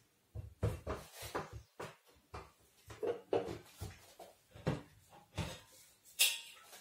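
Irregular kitchen handling clatter: short knocks and clicks as a waffle iron's lid is opened and a spoon works batter in a stainless steel mixing bowl. The sharpest clink comes near the end, as the spoon scrapes the bowl.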